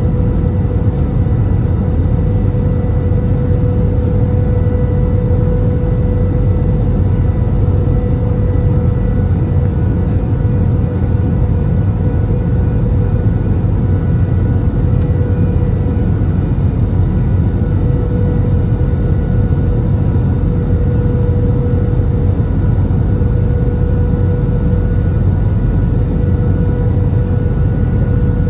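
Airbus A319 cabin noise in flight on approach: a steady low rumble of airflow and engines, with a steady humming tone over it.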